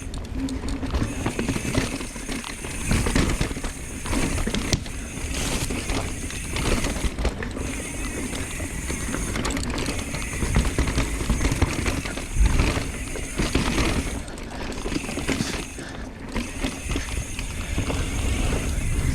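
Industry 9 Hydra rear hub freewheeling with a high-pitched ratcheting buzz as the mountain bike coasts downhill. The buzz breaks off briefly a few times. Underneath it, knobby tyres rumble over the dirt trail and the bike knocks over bumps.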